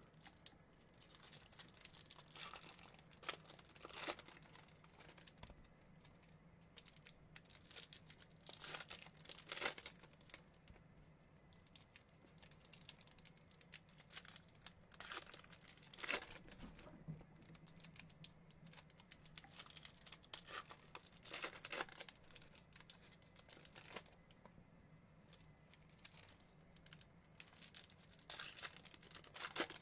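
Foil wrappers of baseball card packs crinkling and tearing as they are opened by hand, with the cards inside being handled. The sound is a run of irregular rustles and rips.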